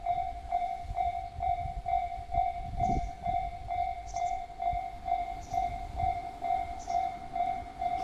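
Japanese railway level-crossing warning bell ringing, an electronic ding repeated evenly about twice a second: the crossing is closed for an approaching train. A low rumble runs underneath.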